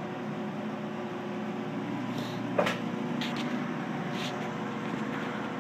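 Steady low hum and hiss with a wood fire in a small steel rocket heater crackling over it: one sharp crack about two and a half seconds in and a few fainter ticks after.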